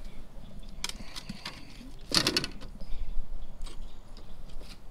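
Branches and leaves rustling and scraping with scattered knocks as a kayak and its fishing rods are worked through an overhanging tree, the rods snagged in the branches. The loudest scrape comes about two seconds in.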